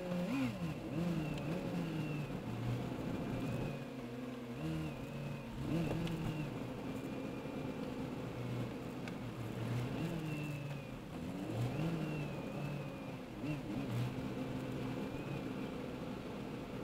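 Car engines running, with the revs repeatedly rising and falling, heard from inside a car's cabin.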